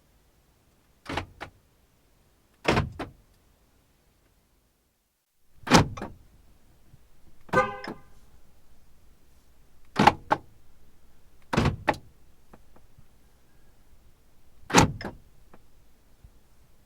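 Car door locks clicking shut, seven times a few seconds apart, each a sharp clack often followed by a smaller second click. One of them, about halfway through, comes with a short pitched beep.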